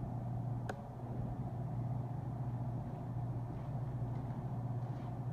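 Steady low mechanical hum with a haze of room noise, and a single faint click about a second in.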